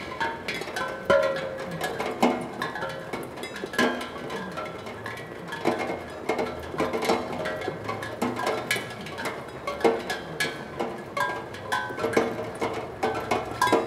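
Raindrops striking a steel tongue drum, sounding random ringing notes at irregular intervals, several a second, with fainter ticks of drops in between.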